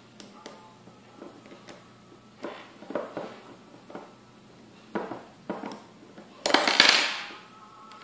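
Small screwdriver clicking and scraping on the screws of a Statfax analyzer's metal motor-valve block as it is opened: scattered light metallic clicks and short scrapes, with a louder, longer scrape about six and a half seconds in.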